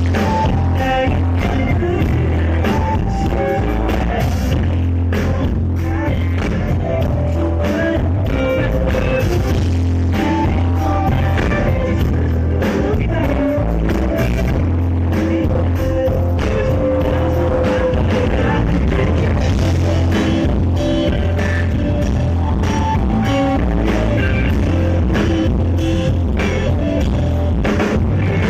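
Live rock band playing amplified music: electric guitar, heavy bass and drums with a singing voice, continuous and loud.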